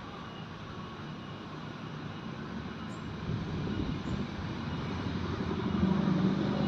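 A motor vehicle engine running and growing steadily louder as it draws closer.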